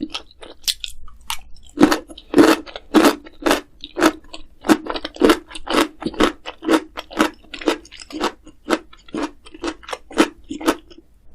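Close-miked chewing of crunchy food, a crisp crunch at each bite of the jaw, about two a second.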